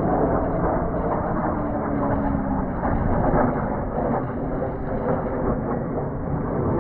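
Jet engine noise from the Red Arrows' BAE Hawk trainers flying their display, a steady rumble with a faint tone that falls slowly in pitch as the jets pass.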